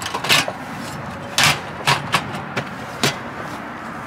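A portable single-burner butane camp stove being handled: a series of about six sharp clicks and knocks as its case and the hinged cover of its canister compartment are opened.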